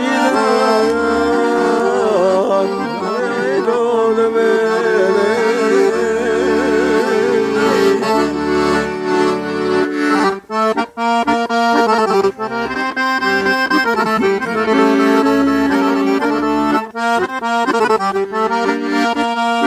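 Scandalli piano accordion playing a traditional folk tune: a moving melody over held chords and low bass notes, with a brief break about ten seconds in.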